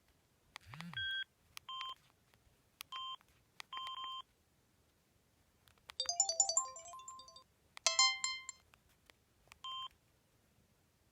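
Samsung SGH-C260 mobile phone's loudspeaker playing its preloaded electronic ringtones in short pieces. A few short, identical beeps are spaced through the silences, and two brief runs of quick melodic notes come in the middle.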